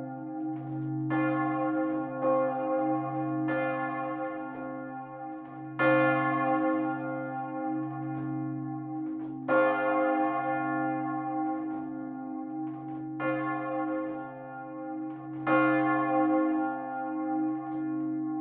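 Two swinging church bells pealing together, a 1885 Paccard bell of about two tonnes sounding C and a 1922 Wauthy bell sounding E-flat. Their clappers strike every second or two, some strokes louder than others, over a continuous low hum.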